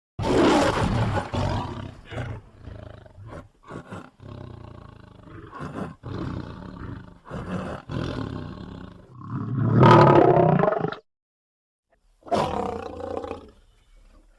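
A string of lion growls and roars, each starting and stopping abruptly, with the loudest roar building near the two-thirds mark. After a second of silence, one more short roar follows.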